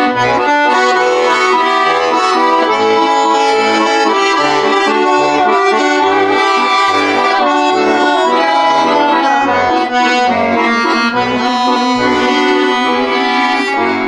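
Button accordion playing an instrumental waltz passage: a melody over bass notes and chords on a steady beat, with no singing.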